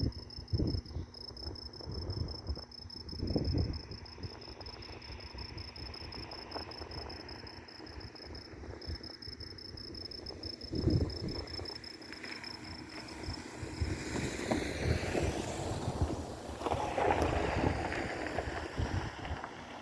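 Crickets chirping in a steady, fast-pulsing high trill that fades out about two-thirds of the way through, over low rumbling that swells and fades several times and grows louder and fuller near the end.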